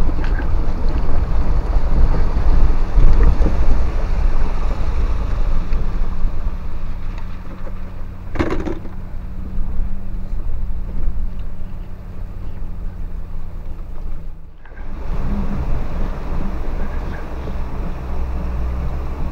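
Cab noise of a Land Rover Defender being towed over a rough, wet riverbed with its own engine dead: a steady low rumble of tyres and body. A single sharp knock comes about eight and a half seconds in, and the noise dips briefly near fifteen seconds.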